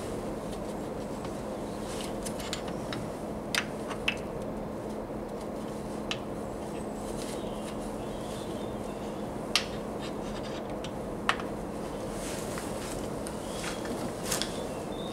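Hand tools being worked at the cambelt end of a Land Rover 200 Tdi engine: a socket extension bar and socket scraping and clinking on metal, with a handful of sharp clicks scattered through, over a steady low hum.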